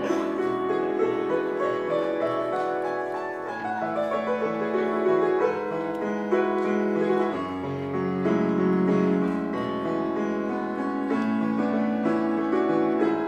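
Instrumental piano music with no singing: a melody of held notes moving step by step over chords.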